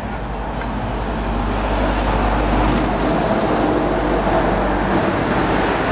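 An engine running steadily nearby, with an even low pulsing under a steady noise; a few light clicks come a little before the middle.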